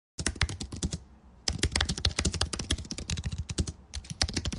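Fast keyboard typing: a quick run of keystrokes, with a half-second pause about a second in and another brief pause near the end.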